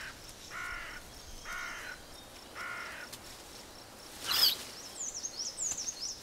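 Four harsh, crow-like calls about a second apart. A little after four seconds in comes one short, loud, sharp sound, then a run of quick high chirps.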